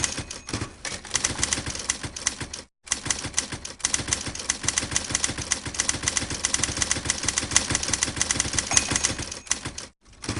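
Typewriter being typed on: a fast, continuous run of key strikes that breaks off abruptly twice, briefly, about a third of the way in and near the end.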